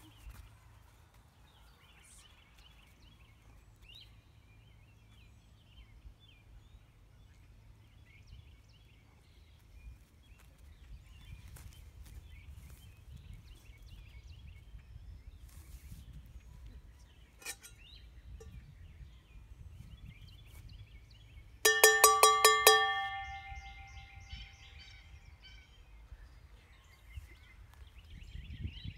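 A metal noisemaker struck in a quick run of about eight loud clanks about three-quarters of the way through, ringing on briefly after the last stroke. It is the sudden noise of the sound-sensitivity test in a puppy aptitude test. Faint birdsong chirps throughout.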